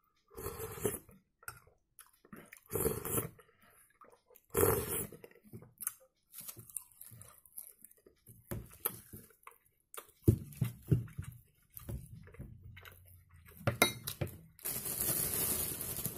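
Eating soup: a metal spoon clinking and scraping against a glass bowl, with a few loud slurps from the spoon in the first five seconds and chewing in between.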